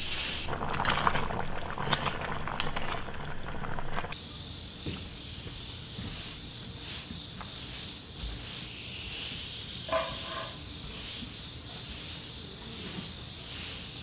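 Doenjang stew boiling hard in an aluminium pot, bubbling and popping, for about four seconds. Then it gives way to a steady high insect trill with a faint pulse about twice a second, and a brief chirp about ten seconds in.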